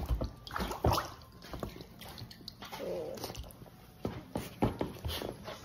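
Shallow water in an inflatable paddling pool sloshing and splashing irregularly as puppies wade and paw at it, loudest about a second in.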